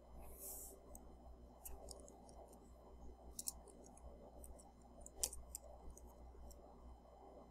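Faint, irregular clicks of computer keyboard keys being typed on, over a low steady electrical hum.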